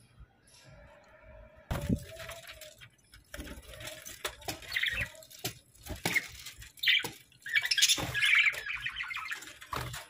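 A flock of budgerigars chirping and chattering, with sharp clicks between the calls. The chattering is busiest in the last few seconds.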